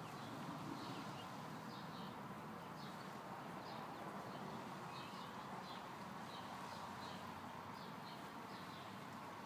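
Small birds chirping, short high notes repeating about once or twice a second, faint over a steady outdoor background hiss.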